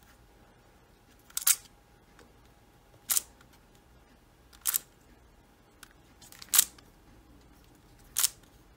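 Xiaomi Giiker i3 smart cube being turned one face at a time, a short sharp plastic clack five times, about every 1.6 seconds.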